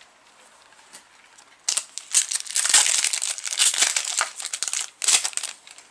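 Foil wrapper of a Magic: The Gathering booster pack being torn open and crinkled: loud crackling begins about a second and a half in and lasts about three seconds, with a shorter crinkle near the end.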